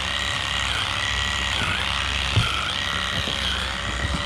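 Handheld electric trimmer running steadily as it cuts the hair of a cow's tail, a constant whine over a low hum, with one sharp knock about halfway through.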